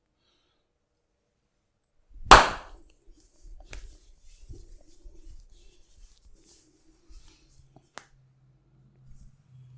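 One loud, sharp smack of hands about two seconds in, as in a barber's percussive massage, then faint rubbing and a few light clicks.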